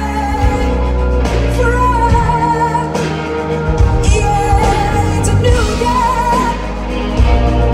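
Pop-rock song with a female lead vocal that sings long, wavering held notes over a steady bass and band backing.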